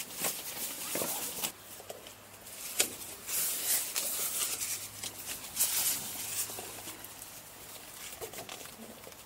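Synthetic fabric ground sheet rustling and crinkling in irregular bursts as it is pulled and spread out by hand, loudest around the middle.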